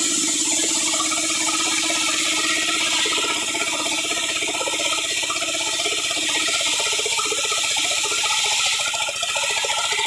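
Belt-driven table circular saw ripping a squared log lengthwise: a loud, steady, hissing cut with a fast rattling texture from the blade's teeth in the wood.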